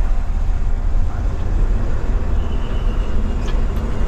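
Olectra electric bus moving off slowly, heard from the driver's cab: a steady low rumble, with a faint thin whine joining about halfway through.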